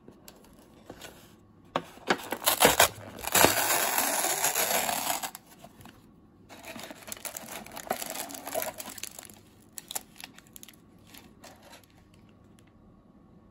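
Peel-off lid of a Menzukuri instant ramen cup being torn back, with a few sharp clicks and then a sustained tearing sound about two to five seconds in. After that come quieter crinkles as the foil soup and seasoning sachets are handled and lifted out of the cup.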